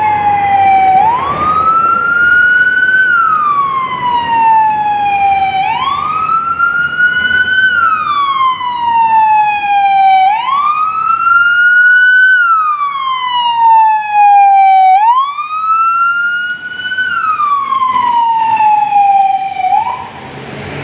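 Emergency vehicle siren on a slow wail: each cycle rises quickly and falls slowly, repeating about every four and a half seconds for four full cycles, then breaks off near the end.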